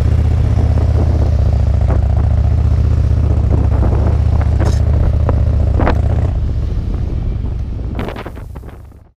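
Harley-Davidson touring motorcycle's V-twin engine running at low speed, a steady low rumble heard from the luggage rack, with a few sharp clicks in the middle. The sound fades over the last three seconds and cuts off to silence just before the end.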